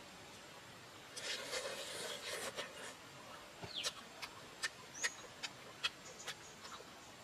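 Fried chicken being torn apart by hand: a crackling, rustling tear of crisp skin and meat, then a string of sharp little clicks and snaps as the pieces are pulled apart.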